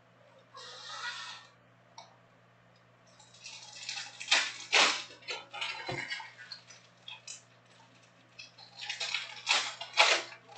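Foil trading-card packs crinkling and rustling as they are picked up and handled, in bursts about a second in, through the middle, and again near the end.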